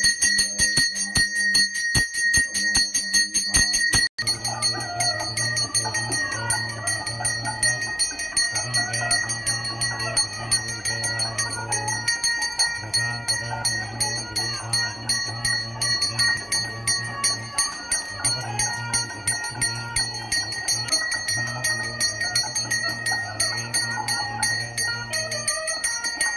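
A brass puja hand bell rung rapidly and without a break, its high tones ringing on, as during an abhishekam. From about four seconds in, music plays behind it.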